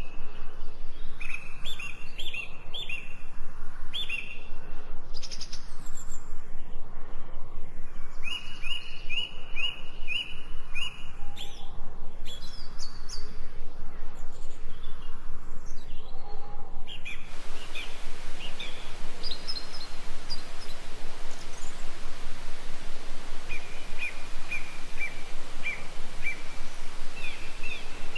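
Birds singing: short, repeated chirps in quick series, over steady outdoor background noise that becomes an even hiss about two-thirds of the way through.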